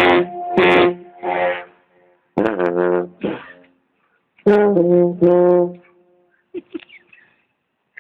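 Short, brassy horn-like notes of steady pitch, played in three halting groups with pauses between them and changing pitch from note to note.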